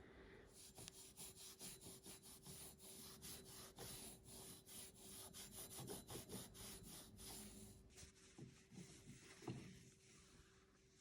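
Faint wiping of a 1935 Singer 66K sewing machine with Singer sewing machine oil, in quick repeated rubbing strokes, cleaning built-up oil and grime off the shellac finish. The strokes stop about eight seconds in.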